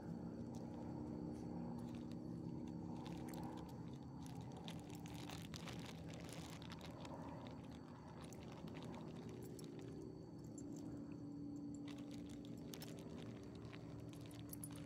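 Faint crunching and scattered clicks of dogs stepping and nosing about in gravel landscaping rock, over a low steady hum.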